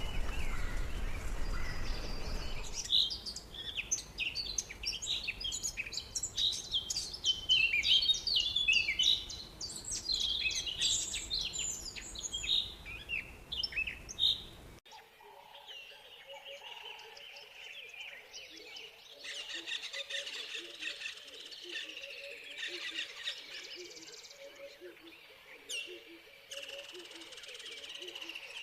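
Rainforest birds chirping in a dense, busy chorus of short, quick calls. About halfway through the sound changes abruptly to a steady high insect-like hum with rapid repeated low calls beneath it.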